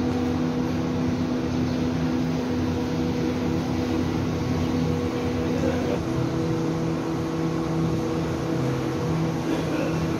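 Machinery in a PVC pipe factory running steadily: an even mechanical drone with several constant low hums over a noisy din.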